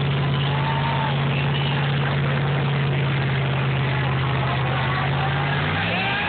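Lifted Chevrolet K5 Blazer's big-horsepower engine pulling the truck through a deep mud pit on large mud tires, a loud steady drone held at one pitch; near the end the engine note drops and shifts.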